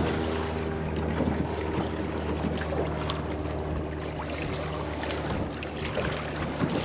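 Wind buffeting the microphone on a small boat over a steady low hum, with small clicks and rustles of hands rebaiting a fishing trace.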